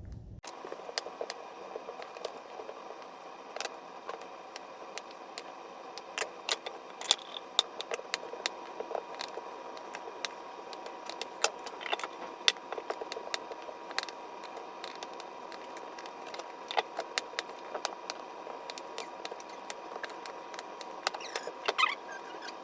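Irregular sharp clicks and light clinks of cucumbers being cut into spears and packed into glass jars, over a steady hum.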